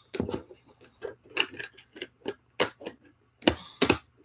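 Plastic wrap being peeled and crumpled off a boxed Funko Pop vinyl figure: irregular crinkles and sharp clicks, a few a second, the loudest about two and a half and three and a half seconds in.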